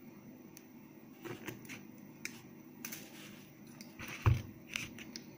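Faint, scattered metal clicks of round-nose pliers bending a loop into the end of a small wire spring. About four seconds in there is one dull knock as the pliers are set down on the table.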